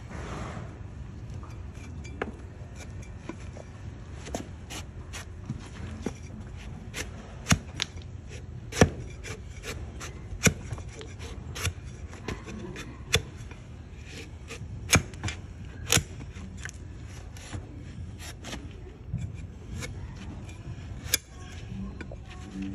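A donkey's hoof horn being pared with a wide flat push-type hoof knife: irregular sharp cutting and scraping sounds, with about a dozen louder snaps as the blade slices through. A steady low rumble runs underneath.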